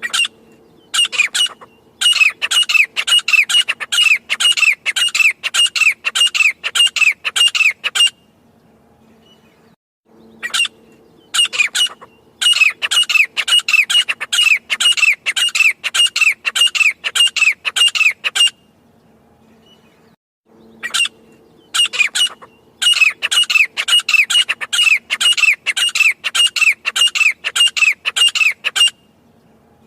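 Grey francolin calling in three loud bouts of sharp, rapidly repeated notes. Each bout opens with a couple of spaced notes, then runs at about three notes a second, with short pauses between bouts.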